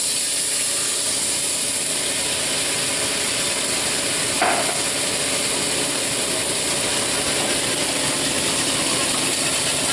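Chicken stock sizzling and hissing steadily as it hits the hot frying pan, deglazing the pan the pork chops were seared in. A brief sharp sound about four and a half seconds in.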